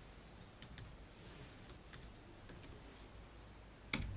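Laptop keyboard being typed on: scattered faint keystrokes, with one sharper click near the end.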